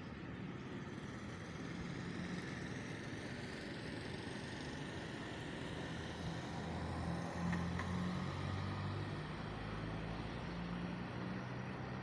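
A motor vehicle's engine humming over a steady outdoor hiss, growing louder about six seconds in and loudest around eight seconds before easing off.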